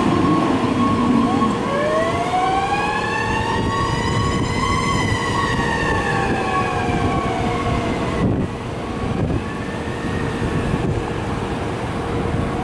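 Spartan Crimson fire engine's siren wailing in one slow rise and fall over about six seconds, then fainter as the engine pulls away, over the hiss of passing road traffic.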